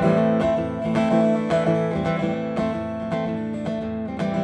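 Acoustic guitar played with steady strumming, the chords ringing out, with no singing.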